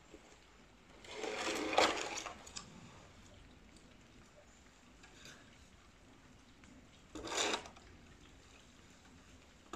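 A long-handled shovel scraping along wet ground while scooping up manure: a longer scrape about a second in and a shorter one about seven seconds in.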